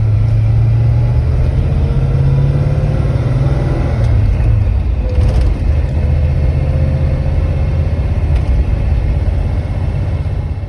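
1979 Camaro Z28's 350 V8 engine running at idle with a steady low rumble. A faint higher tone slides slowly upward in pitch from about a second in to about five seconds in.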